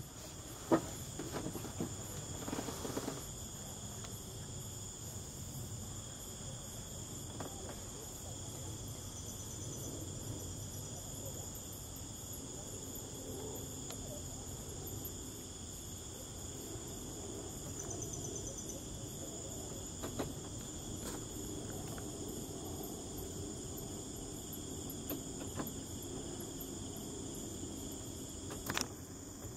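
Night insects chirring steadily at a high pitch over a low background hum, with a few short clicks, the sharpest about a second in and another near the end.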